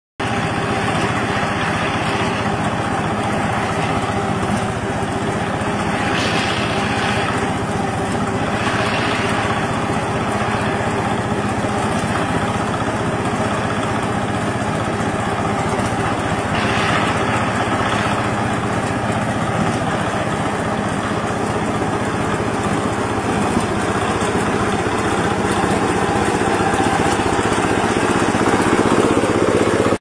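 Small engine of a walk-behind self-propelled rice harvester running steadily under load as it cuts rice: a constant hum with a rushing hiss over it, growing a little louder near the end.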